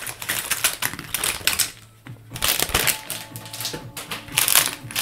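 Small plastic Lego pieces clicking and rattling as they are handled and sorted, a fast run of light clicks that dips quieter about two seconds in.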